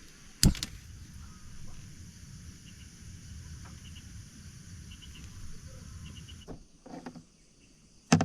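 Steady high drone of insects, with short chirps repeating about once a second. A sharp click comes about half a second in, and a low rumble underneath stops about six and a half seconds in.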